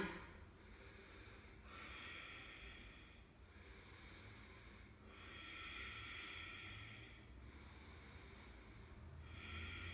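A person's slow, audible yoga breathing: soft hissing breaths of about two seconds each, one after another, alternately stronger and weaker like inhale and exhale.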